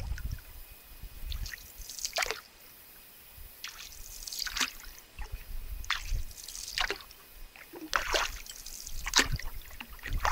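Canoe paddle strokes: short splashes of water from the paddle blade, roughly one every second or so, with dripping in between. A low rumble sits underneath on the phone's microphone.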